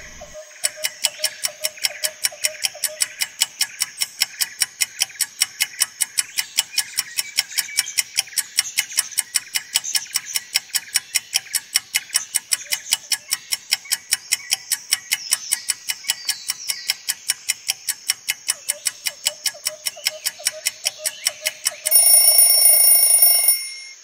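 Countdown-timer sound effect: a clock ticking rapidly and evenly, about four or five ticks a second, ending near the end with a short, loud alarm tone signalling that time is up.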